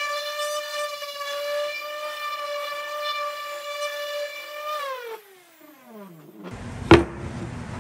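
Electric random orbital sander running with a steady high whine while sanding a wooden frame, then switched off, its pitch falling as the pad winds down. A single sharp knock follows near the end.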